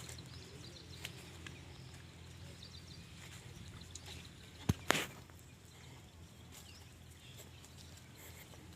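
Outdoor rural field ambience: a steady low hum under faint high chirps, broken about halfway through by two sharp knocks a fraction of a second apart.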